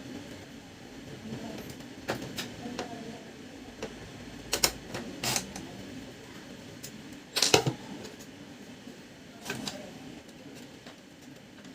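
Scattered sharp clicks and knocks of a Brother MFC-7360 printer's plastic parts being handled during disassembly. The loudest knock comes about halfway through, over a low steady hum.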